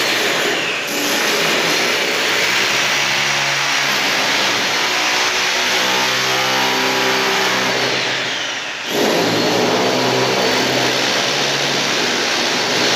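Electric hammer drill boring into a concrete floor, running steadily, with a short break about nine seconds in before it starts again.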